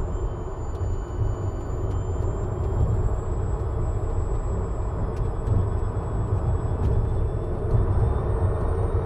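Steady tyre and road rumble from a Tesla Model 3 Performance, an electric car with no engine note, rolling along an asphalt road.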